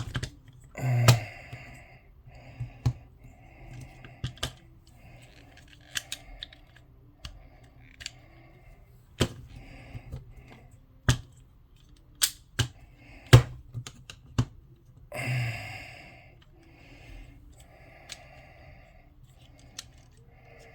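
Irregular sharp clicks and taps of hard plastic as a GoPro swivel mount base and its parts are handled and fitted together, with a few softer rustles in between.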